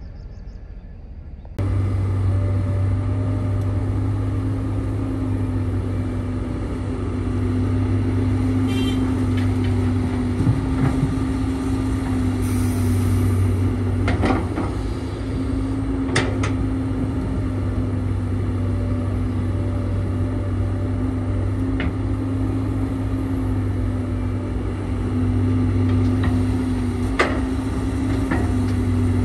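Heavy diesel machinery running steadily with a deep, even engine hum, starting suddenly about a second and a half in. A few sharp knocks stand out over it.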